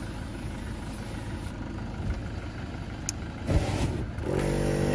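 Flame bead-seating of an off-road tyre. About three and a half seconds in, aerosol gas sprayed into the tyre is lit and ignites with a sudden loud whoosh. Moments later a 12-volt air compressor starts with a steady buzz to inflate it, over the low running of an idling vehicle engine.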